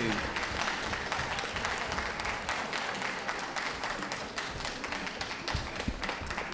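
Audience applauding: many hands clapping at once in a steady patter.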